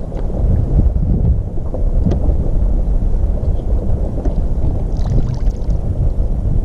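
Wind buffeting the microphone outdoors over open water: a steady low rumble, with a brief hiss about five seconds in.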